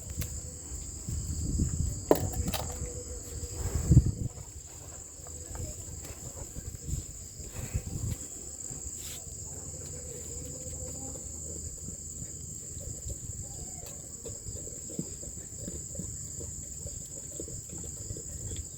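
Insects, crickets most likely, keeping up a steady high-pitched chirring throughout, with some low thumps and handling bumps in the first few seconds, the loudest about four seconds in.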